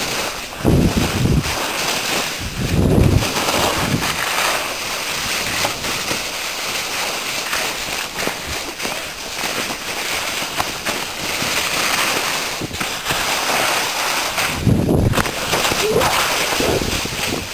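Steady hiss of skis sliding and scraping over packed snow on a downhill run, with wind buffeting the microphone in low rumbling gusts near the start, around three seconds in, and near the end.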